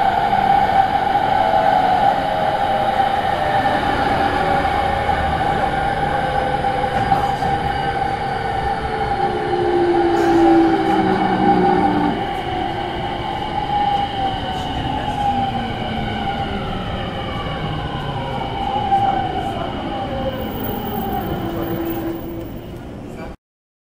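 Running sound of a JR E231 series 800 subseries electric train, the so-called 'ghost inverter': a steady high tone over track noise, with several VVVF inverter tones falling in pitch together through the second half as the train slows under braking. The sound cuts off abruptly near the end.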